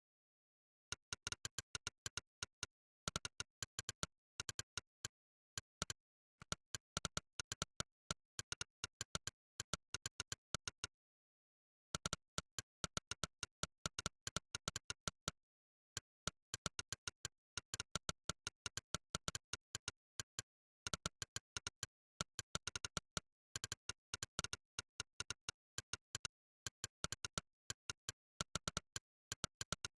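Monkeytype's synthetic 'click' keypress sound, one short click per keystroke as someone types a test. The clicks come rapidly, several a second, in runs broken by brief pauses, with dead silence between them.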